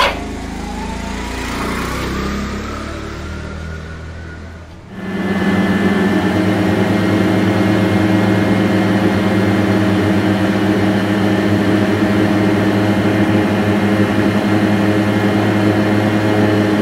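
Small motor scooter engine sound, added as an effect for the toy scooter being pushed along. It starts suddenly about five seconds in and then runs steadily at one unchanging pitch.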